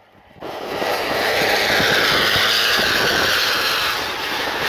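A bus's Basuri V3 telolet air horn sounding loud and sustained, cutting in suddenly about half a second in.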